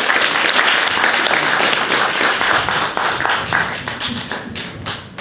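Audience applauding, many hands clapping together; the applause thins and dies down near the end.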